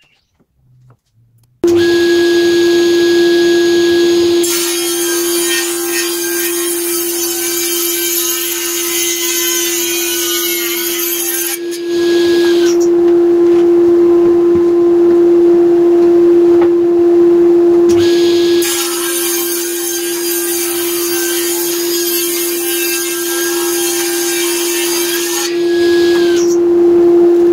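Table saw running with a steady hum, making two rip cuts through an end-grain wood butcher block to trim its edges flat and parallel. Each cut is about seven seconds of loud hissing blade noise over the motor.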